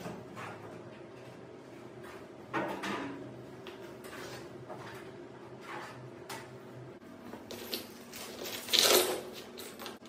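Intermittent clinks and knocks of cabinet parts and hardware being handled during assembly: a handful of short taps spread through, with one louder clatter near the end.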